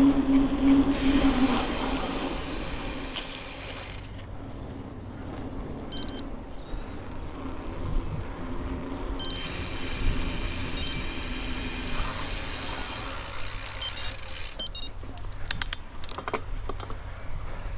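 A bicycle being ridden, heard from a camera on the bike: steady tyre and wind rumble. A loud steady hum at the start fades away within about two seconds. Short high chirps come now and then, and a few sharp clicks come near the end.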